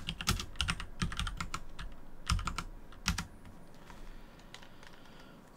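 Typing on a computer keyboard: a quick run of keystrokes over about three seconds as a short terminal command is entered, then a few scattered, fainter key presses.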